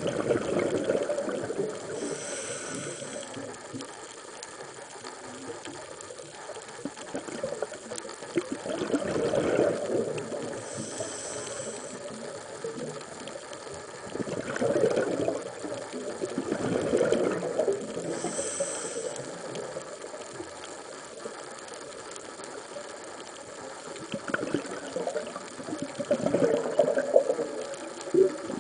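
Scuba diver breathing through a regulator underwater: brief hisses of inhalation three times, with longer surges of bubbling, crackling exhaust bubbles several times between them.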